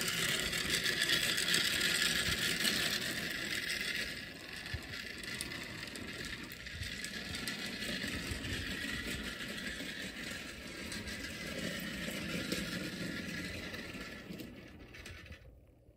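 Lima CRICK clockwork toy train running on the track: the mostly plastic clockwork motor whirring and the wheels rattling over the rails. It drops in loudness about four seconds in, then fades away near the end as the spring runs down and the train stops short of a full loop.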